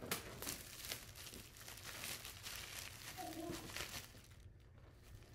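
Clear plastic shrink wrap crinkling and tearing as it is worked off a cardboard box. It makes a dense run of crackles that dies down in the last second.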